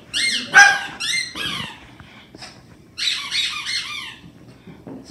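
High-pitched squeaks while Pekingese puppies play: several falling squeaks in quick succession in the first two seconds, then a fast run of short squeaks about three seconds in.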